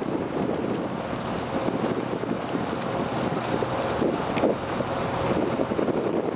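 Wind buffeting the microphone over the rush of moving water, a steady noise, with one sharp click about four seconds in.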